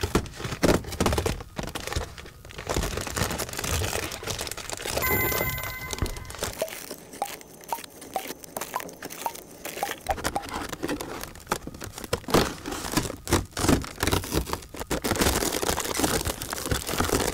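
Cardboard advent calendar doors being torn open and holographic foil and tiny wrapped gift boxes crinkled and rustled by hand: a dense run of crinkles, rips and small taps. A brief ringing tone sounds about five seconds in.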